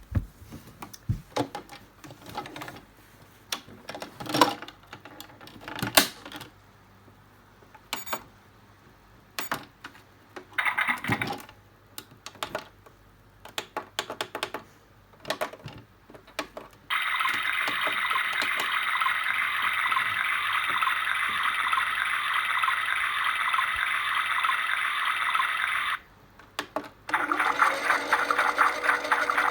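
Old washing machine being started: a series of clicks and knocks, then from about 17 s in a steady loud rushing that cuts off near 26 s and starts again a second later with a steady hum under it.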